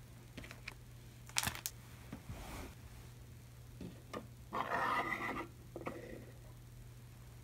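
Objects being handled and set down on a desktop: a few sharp clicks and taps in the first few seconds, then a longer rustle about four and a half seconds in, over a steady low hum.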